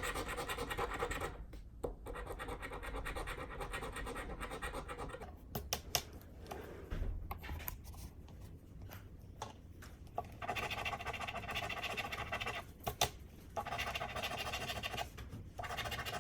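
A scratch-off lottery ticket's coating being scraped off in rapid rubbing strokes. The scraping comes in stretches of a few seconds, broken by short pauses, with a few light ticks in the quieter middle part.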